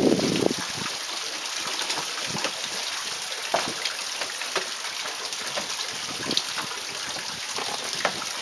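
Water trickling and splashing at a large wooden water wheel: a steady hiss with scattered small splashes.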